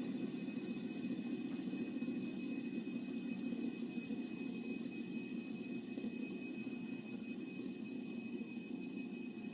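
Fidget spinner whirring steadily on its bearing, a low buzzing hum that slowly eases off.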